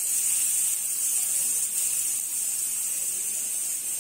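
Steady hiss of hot ghee sizzling in a frying pan, with grated coconut, cashews and raisins frying in it.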